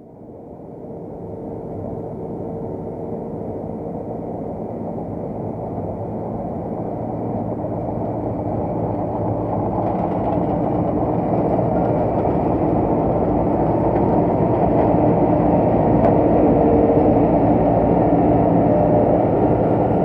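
John Deere CTS rice combine harvester running while harvesting, a steady mechanical drone with a few held tones that grows steadily louder as the machine comes close and passes by.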